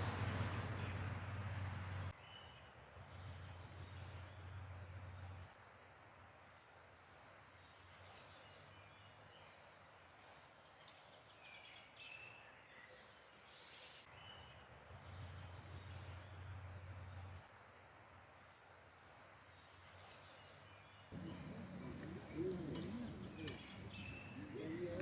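Faint forest ambience: a steady, high-pitched chirring with repeated pulses runs throughout, with a few short bird calls over it. A louder rumble fills the first two seconds.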